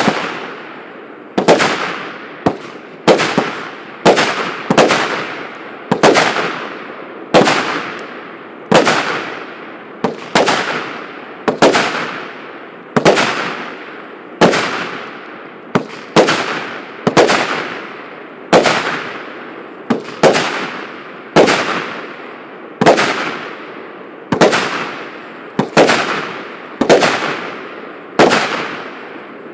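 148-shot consumer firework cake (battery) firing in a steady series of sharp bangs, a little more than one a second, each trailing off in an echo.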